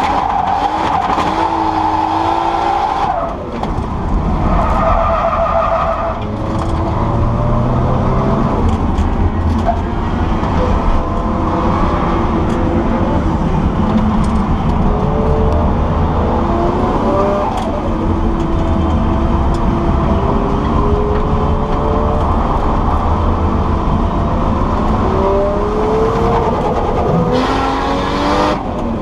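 Nissan Skyline drift car's engine revving hard, its pitch climbing and dropping again and again through the slides, heard from inside the cabin. The tyres squeal loudly in the first three seconds and again about five seconds in.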